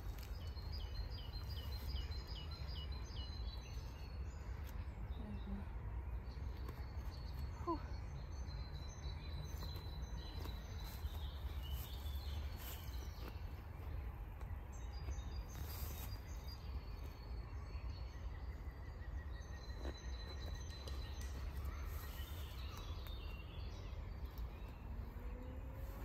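Outdoor ambience of a steady low rumble with small birds chirping and calling throughout, including a quick run of repeated chirps in the first few seconds.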